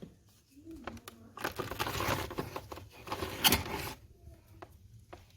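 Crackling and scraping at a freshly lit wood fire in a fireplace, dense with small snaps for about two and a half seconds. It peaks in a sharp crack or knock about three and a half seconds in, then thins to scattered faint clicks.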